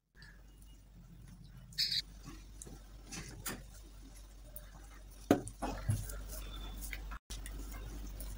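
Close-miked eating sounds: fingers mixing and squishing cooked rice on a banana leaf, with small clicks and rustles. A sharp knock comes a little past five seconds in.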